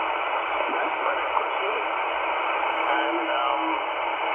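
XHDATA D-808 portable shortwave receiver's speaker on the 20-meter amateur band in upper sideband: steady static hiss with faint, garbled single-sideband voices of ham operators mixed in.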